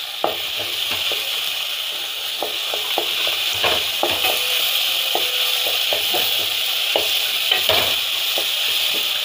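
Onion, tomato and ginger-garlic paste sizzling steadily in oil in a pot while a wooden spatula stirs them, with scattered short scrapes and knocks of the spatula against the pot. The paste is being sautéed until its raw smell cooks off.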